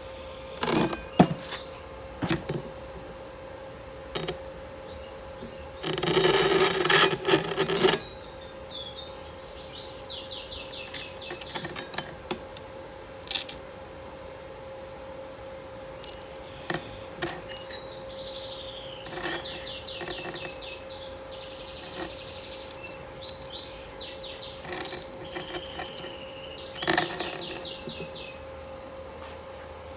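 Small birds chirping in short high trills over a steady hum, with scattered sharp knocks and clicks and a noisy two-second clatter a few seconds in.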